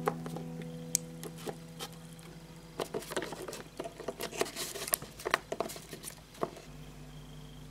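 Light, irregular pattering taps and clicks, like small quick footsteps, thickest in the middle and stopping about a second before the end. A faint held chord of background music sits underneath and shifts to another chord near the end.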